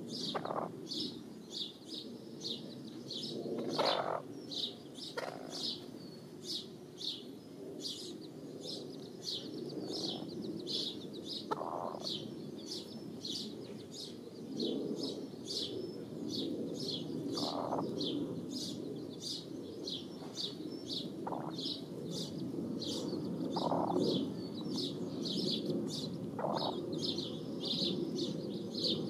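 A bird chirping in a steady series, about two to three short high chirps a second, over a low background rumble with a few brief scuffs.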